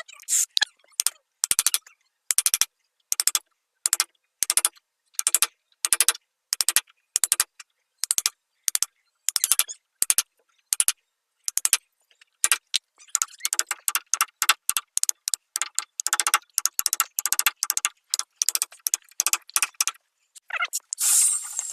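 Short, even scraping or rubbing strokes on wood, about one and a half a second, each cut off sharply by silence; they come faster and closer together from about twelve seconds in.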